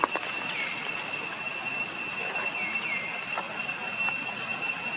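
Steady high-pitched drone of cicadas, with a few short squeaks and a sharp click at the start.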